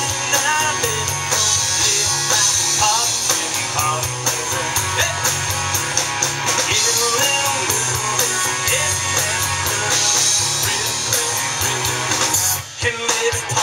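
Live rock band playing: electric and acoustic guitars, bass guitar and drum kit, with a brief drop in the sound about a second before the end.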